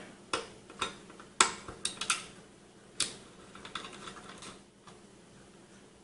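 Small sharp clicks and taps of metal parts as hands work on a tower CPU heatsink's mounting hardware: about ten irregular clicks, the loudest about a second and a half in and at three seconds, dying away after four seconds or so.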